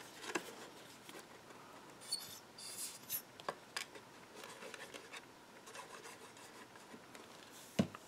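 Faint rubbing and rustling of a cardstock paper box being handled and pressed, with scattered light taps and one sharper tap near the end.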